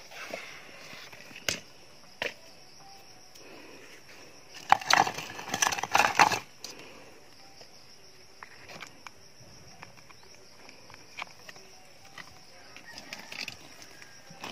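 Crunching and rustling handling noises with a few sharp clicks, loudest in a burst of about a second and a half around five seconds in, over a steady high hiss.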